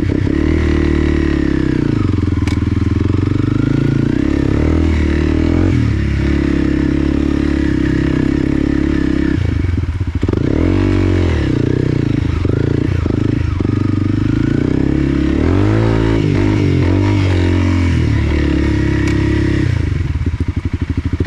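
Off-road motorcycle engine running under load on a dirt track. Its pitch rises and falls with the throttle, easing off briefly about ten seconds in and again around sixteen seconds.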